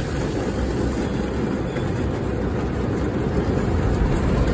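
Automatic car wash spraying water over the windshield and body, heard from inside the car's cabin: a steady, deep rushing noise.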